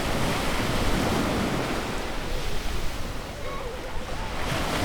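Ocean waves breaking and washing onto a beach, a continuous rushing surf. The wash eases slightly past the middle and swells again near the end as the next wave comes in.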